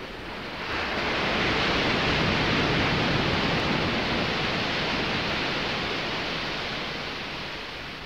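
A rushing surge of noise like an ocean wave. It swells up about a second in, holds loudest for a couple of seconds, then slowly dies away.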